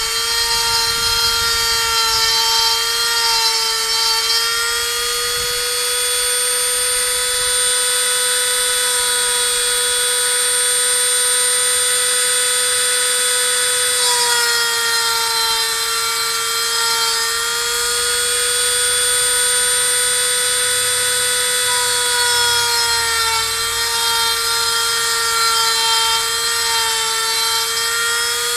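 135-watt handheld rotary tool spinning a 3 mm bit as the spindle of a CNC router, milling pine in 0.5 mm passes. It gives a steady high whine whose pitch sags slightly a few times as the cut loads the motor.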